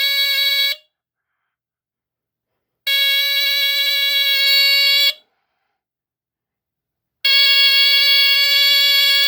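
A late-1970s smoke detector's squealer horn sounding in long, steady, buzzy blasts of about two seconds, each followed by about two seconds of silence. One blast cuts off just under a second in, another sounds in the middle, and a third starts near the end.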